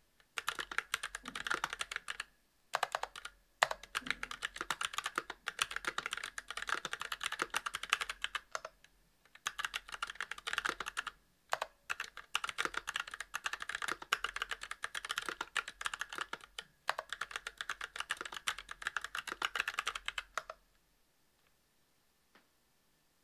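Continuous typing on a Monstargear Alu XO v2 mechanical keyboard with Kailh Box Brown tactile switches, a brass plate and GMK doubleshot ABS keycaps: rapid keystrokes in runs with short pauses. The typing stops about twenty seconds in.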